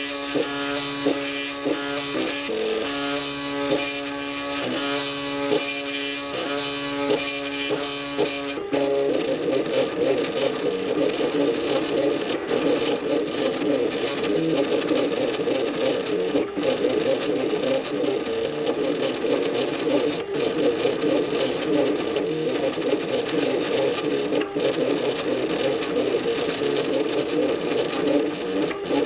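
MakerBot Cupcake CNC 3D printer's stepper motors whining in steady pitched tones that jump to a new pitch every half second or so as the print head moves back and forth laying down the first layers of ABS. About nine seconds in, the tones turn into a faster, warbling whir with a few sharp clicks.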